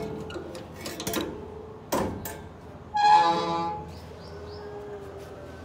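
Sheet-metal gate being unlatched, with a few sharp metallic clicks and knocks, then a short creaking squeal about three seconds in as it swings open.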